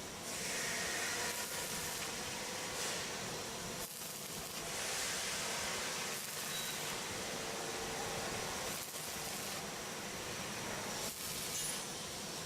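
Electric arc welding: the arc gives a steady hiss, with brief breaks about 4, 9 and 11 seconds in.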